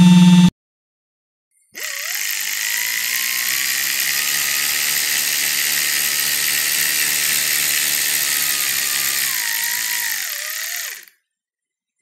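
An electric power tool's motor spins up a little under two seconds in, its pitch rising. It runs steadily with a strong high hiss for about nine seconds, then winds down and stops near the end. A humming sound from the previous clip cuts off half a second in, and a brief burst of another tool sounds at the very end.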